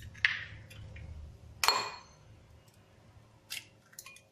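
An egg tapped against the rim of a ceramic bowl: a couple of sharp knocks, the louder one about a second and a half in, ringing briefly. Faint crackles follow near the end as the shell is pulled apart over the bowl.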